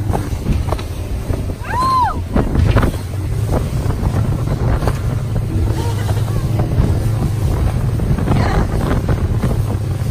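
Powerboat engines running at speed, heard from aboard a boat underway, under heavy wind buffeting on the microphone and the rush and slap of spray and water against the hull. A brief rising-and-falling cry about two seconds in.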